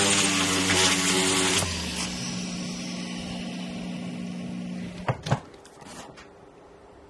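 A jeweller's rotary handpiece running with a steady whine, its tip grinding against silver for the first second and a half, then spinning on more quietly off the metal until it stops about five seconds in. A couple of small clicks follow as the piece is handled.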